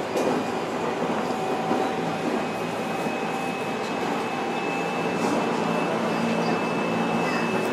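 Seoul subway train running on the rails: a steady rumbling noise with thin steady whining tones over it, after a short knock at the start.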